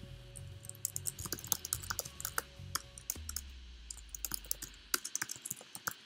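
Typing on a computer keyboard: irregular quick key clicks in short runs, a line of code being typed.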